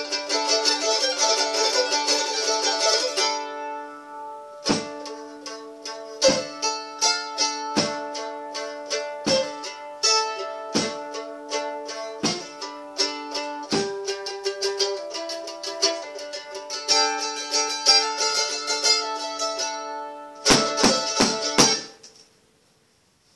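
A small plucked string instrument played solo. It opens with fast tremolo strumming, moves into single picked notes and ringing chords, returns to fast strumming later, and ends with a quick flurry that stops abruptly shortly before the end.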